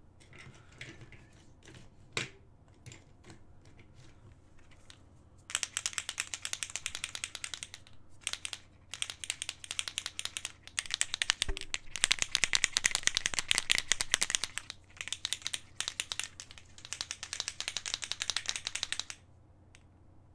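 A Posca acrylic paint marker being shaken in several long bursts, the mixing ball inside rattling rapidly, to stir the paint before use. The first few seconds hold only faint handling clicks.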